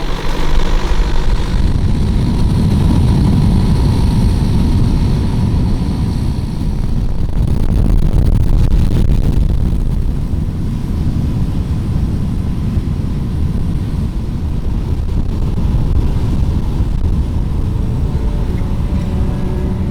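Motorboat engine running steadily as the boat travels, a loud, even drone heavy in the low end.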